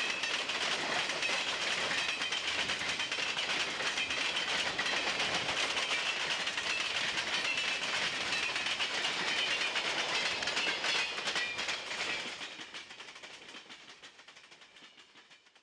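Freight train cars rolling past, wheels clattering over rail joints, the sound fading away over the last few seconds.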